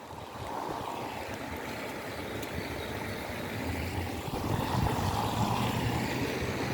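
Steady rain and wet-street noise, with a vehicle's low engine hum and tyre hiss on the wet road growing louder over the second half.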